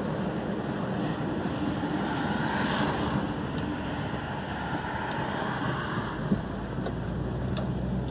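Steady engine and road noise of a car driving, heard inside the cabin: a continuous drone with a low engine hum. A single brief knock comes about six seconds in.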